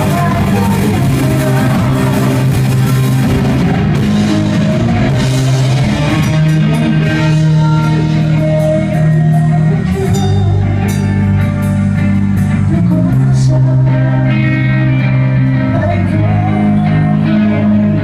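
Rock band playing live, with guitar, a bass line that holds each note for a second or two, and drum kit with cymbals.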